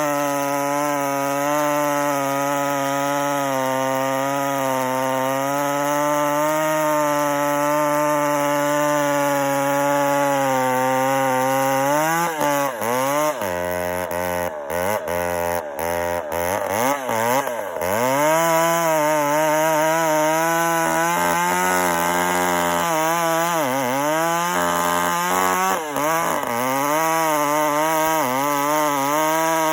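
Ported and piped Homelite 450 two-stroke chainsaw with a 32-inch bar cutting wood at high revs, its engine note wavering slightly under load. In the middle the revs swing sharply up and down several times, then the saw settles back into a steady cut.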